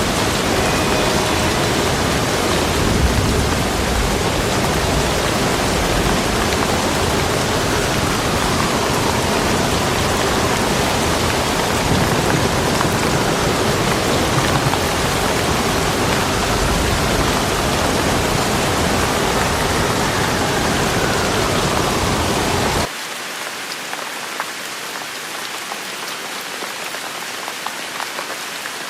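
Steady rain with a dense hiss and low rumble. About three-quarters of the way through, the sound cuts abruptly to lighter, quieter rain with individual drops ticking.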